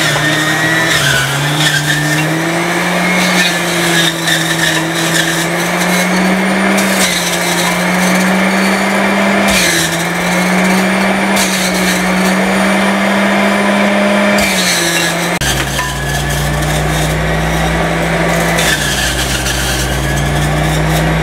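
Electric centrifugal juicer running as watermelon chunks are pressed down its feed chute, its motor hum dipping in pitch and recovering several times. A deeper rumble joins about fifteen seconds in.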